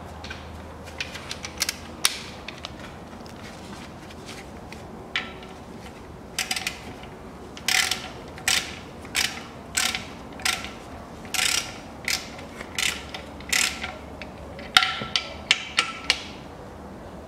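Ratchet wrench with a 17 mm socket clicking in short strokes, about one every 0.7 s, with a quicker cluster near the end, as the engine oil drain plug is screwed back in.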